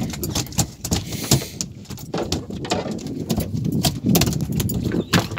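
Freshly landed dorado (mahi-mahi) thrashing on a boat deck: a fast, irregular series of slaps and knocks, with some rattling.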